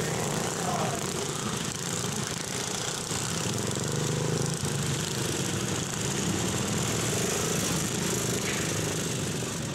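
Several racing garden tractors' small engines running together, a steady overlapping engine drone.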